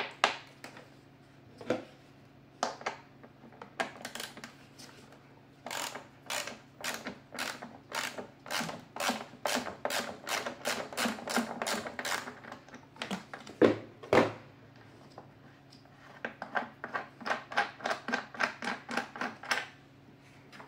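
Runs of sharp, evenly spaced clicks, about three a second, from a hand tool turning out screws in the plastic housing of a Kärcher WD 3 wet-and-dry vacuum cleaner. Two heavier knocks come midway.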